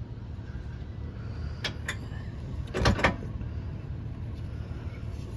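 An SUV engine idling with a steady low rumble. Two sharp clicks come about two seconds in, and a louder double knock, the loudest sound, comes about three seconds in.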